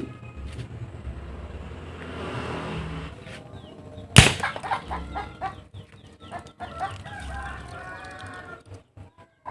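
A single sharp bang about four seconds in, the shot of a homemade alcohol-fuelled mini gun, followed by birds calling.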